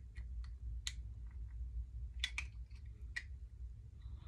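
Light plastic clicks and fingernail scratches as a hard-to-open blush compact is worked open, a few sharper ticks about one, two and three seconds in, over a low steady hum.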